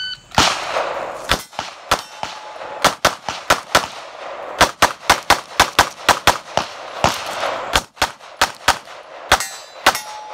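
A shot timer beeps, then a 9mm Beretta 92 pistol fires a stage: about two dozen shots in pairs and quick strings with short pauses between. A steel target rings from a hit a couple of times.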